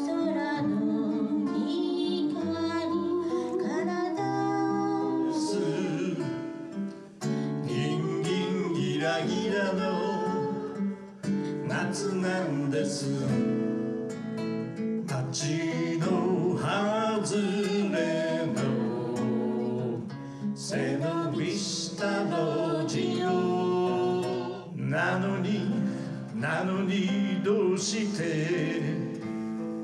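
Acoustic guitar accompanying singing: a man and a woman singing a song as a duet.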